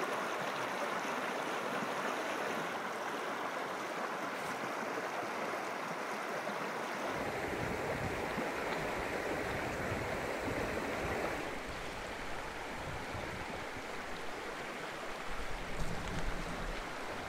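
Mountain trout stream flowing steadily. About seven seconds in, the rush takes on a fuller, lower rumble.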